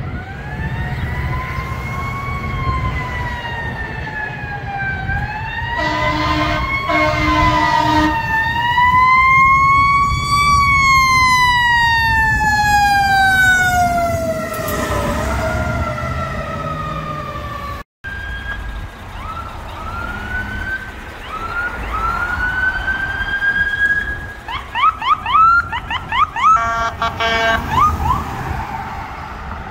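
Fire truck sirens. A Pierce tower ladder's siren wails up and down, with air horn blasts about six seconds in, then falls slowly in pitch as it passes. Later a second fire truck's siren gives short rising whoops and a long rise, then switches to a fast yelp broken by a horn blast near the end.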